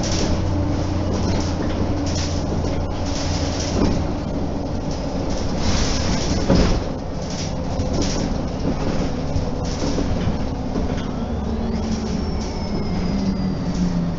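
Cabin sound of a Mercedes-Benz O 530 G articulated city bus under way: the rear-mounted engine running with a steady low drone under road noise and body rattles. There are a couple of bumps about four and six and a half seconds in, and a faint whine gliding in pitch near the end.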